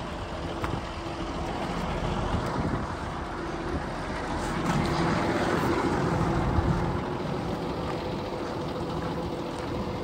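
Cummins diesel engine of a Ford F-750 bucket truck running steadily, a continuous even hum with a noisy, wind-like hiss over it.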